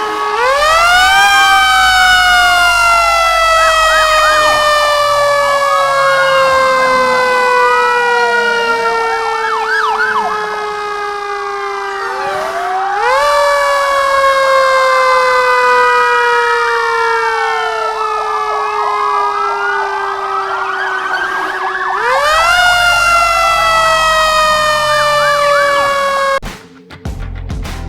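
Fire truck siren: a wail that climbs quickly and then slides slowly down, three times, with a faster rising-and-falling wail over it and a low rumble as each rise begins. The siren cuts off near the end and music follows.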